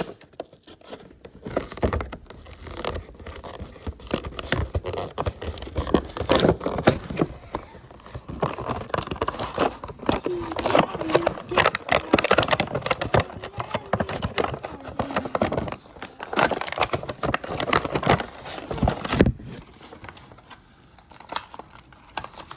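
Toy packaging being worked open: cardboard and plastic crinkling, tearing and scraping in a busy flurry that thins out about nineteen seconds in.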